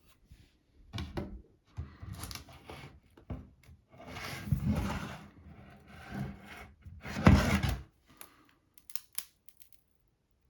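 Irregular scraping and rubbing in several bursts, with a few light clicks near the end: small hand tools working on the stuck, stripped SSD screw inside a 2014 MacBook Air.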